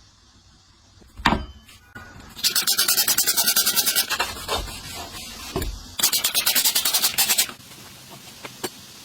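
Brisk back-and-forth scrubbing or rubbing, about ten strokes a second, in two bursts of a second and a half each, after a single knock about a second in.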